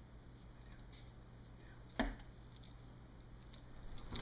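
Blunt dollar-store scissors snipping through folded thin paper: a few faint cuts and one sharper snip about two seconds in.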